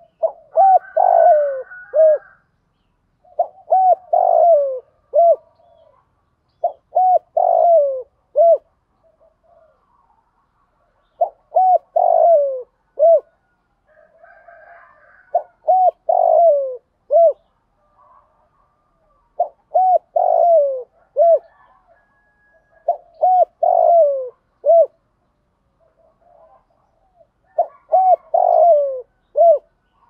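Spotted dove cooing, repeating its phrase about every three to four seconds: a few short coos around one longer, falling coo.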